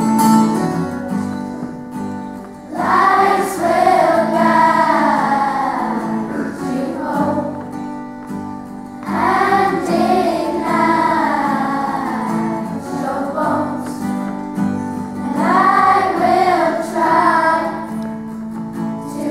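Children's choir singing with an acoustic guitar accompaniment, in three long sung phrases over the guitar's steady chords.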